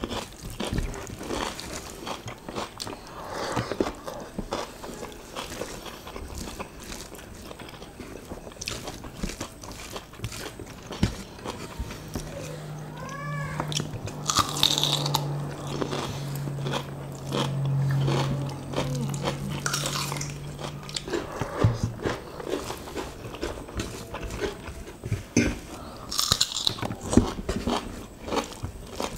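Close-up chewing and wet mouth sounds of two people eating rice with sardines and quail eggs by hand: dense small lip-smacks and sticky clicks, with a few louder bursts. A low steady hum runs for several seconds in the middle.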